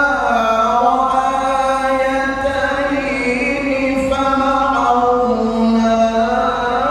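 A man reciting the Quran in the melodic tilawah style into a microphone, with long held notes that slide down and back up in ornamented glides.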